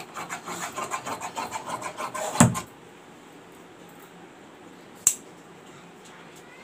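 Tailor's scissors cutting through fabric, a quick run of rasping snips for about two and a half seconds, ending in a louder snap. Then a quiet stretch with a single click about five seconds in.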